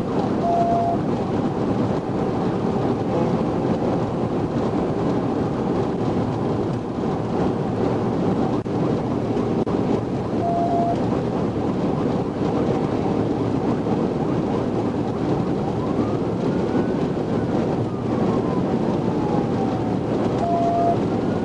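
Steady wind and road noise inside a police patrol car at about 140 mph in pursuit. A short beep sounds about every ten seconds, and a faint siren wail rises and falls near the end.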